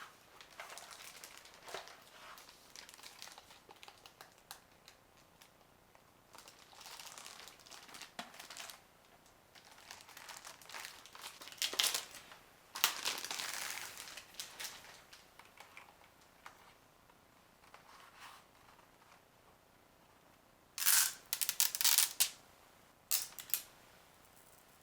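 Keyboard packaging being handled and unwrapped: irregular bursts of crinkling, with a few sharp knocks near the end.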